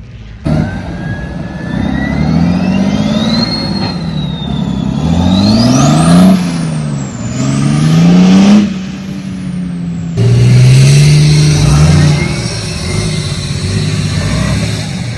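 Off-road vehicle engine revving hard, its pitch climbing and dropping over and over as the throttle is worked on a steep hill climb, with a high whine rising and falling along with it. The sound changes abruptly about ten seconds in to a steadier, deeper engine note.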